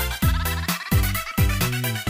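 Upbeat electronic background music with a steady beat and a pulsing bass line.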